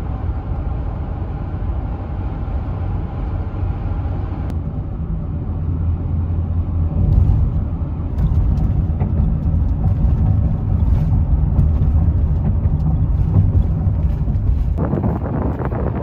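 Steady low road rumble inside a minivan's cabin while driving at highway speed. Near the end it cuts abruptly to wind buffeting the microphone.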